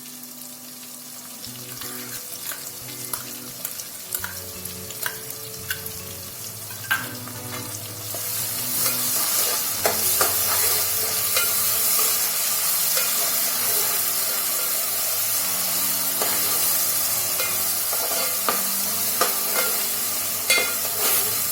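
Ground masala paste frying in hot oil with onion and tomato, sizzling while a spoon stirs it, scraping and clicking against the pan. The sizzle gets louder about eight seconds in.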